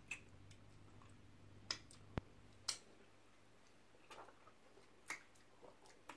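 Faint, irregular wet mouth clicks and lip smacks from people eating egusi soup and starch with their fingers and sucking the food off them, about eight over six seconds, against a quiet room.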